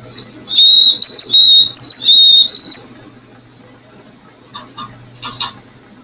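A loud two-note whistle repeated about seven times over the first three seconds, alternating a higher and a slightly lower steady pitch, played back through the experiment's speaker. A few short, sharp chips or taps follow near the end.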